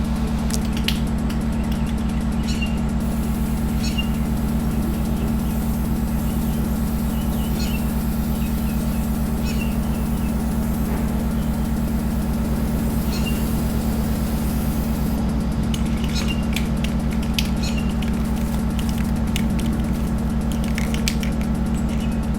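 A steady low mechanical hum from a running motor, with scattered light clicks and short high chirps over it.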